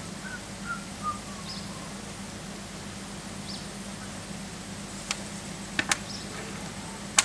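Birds chirping with short, high calls over the first few seconds, then sharp clacks of drilled wooden branch slices knocking together as they are threaded onto a shoelace, four in all, the loudest near the end. A steady low hum runs underneath.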